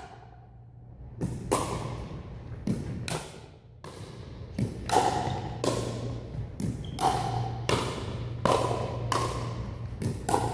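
Pickleball rally: paddles striking a hard plastic ball back and forth. About a dozen sharp, hollow pocks come roughly two-thirds of a second apart after a quiet first second, echoing around a large gym.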